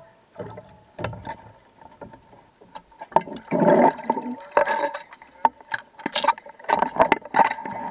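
Handling noise from a camera being picked up and moved about: irregular knocks, clicks and rubbing, quiet at first and loudest from about three seconds in.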